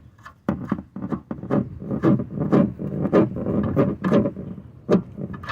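Irregular clicking and clattering, several sharp knocks a second, from work at the oil drain plug on a 1992 Dodge Ram B250 van's oil pan as the old oil is let out.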